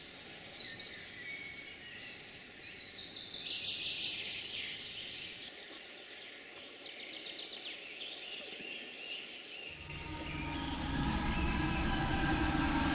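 Small birds singing in woodland: quick, high chirps and trills, some repeated in fast runs. About ten seconds in, a low steady rumble with a hum comes in and grows louder.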